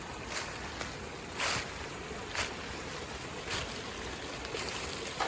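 Water running over small creek waterfalls, a steady rushing, with footsteps on the creek bed about once a second.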